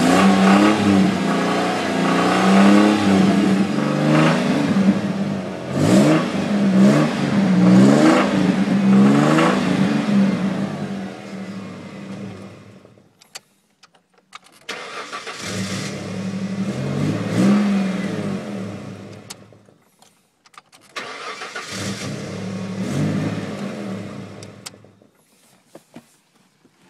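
Ford Mustang engine through a dual Flowmaster exhaust, being revved again and again, the pitch rising and falling. About halfway through the sound dies away, then it comes back suddenly twice for a few seconds of running and revving each time.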